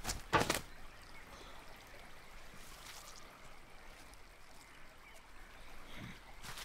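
A few short, sharp sounds in the first half-second, then faint, steady trickling-water ambience of a pond.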